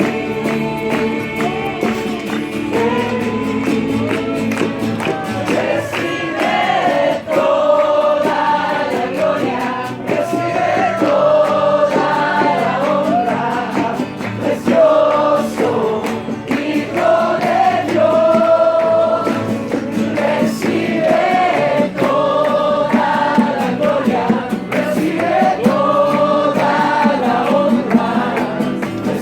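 A group of voices singing a worship song together.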